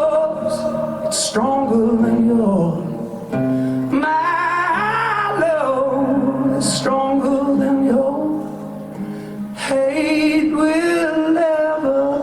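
Live rock band playing a slow song: a male lead singer holds long, bending sung notes over the band's sustained chords.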